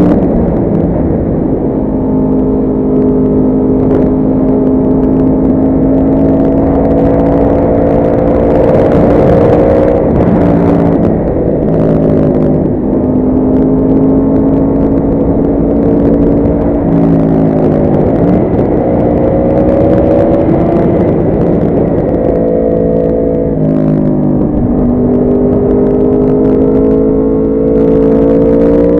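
Yamaha R1 sport motorcycle's inline-four engine running hard at speed over a steady low rush of wind. Its pitch climbs slowly and then drops sharply several times as it shifts or slows.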